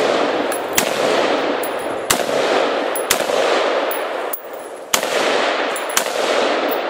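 AR-15 rifle in 5.56/.223 fired in slow aimed semi-automatic fire: five sharp shots roughly a second apart, each trailing a long rolling echo.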